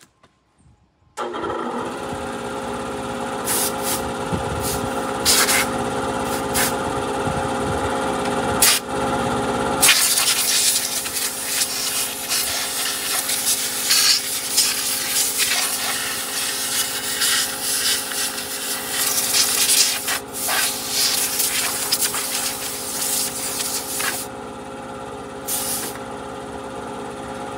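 Pioneer P-51 two-stroke chainsaw, running on a new carburetor, starts about a second in and idles. At about ten seconds it goes to high speed for roughly fourteen seconds, rising and falling, then drops back to idle.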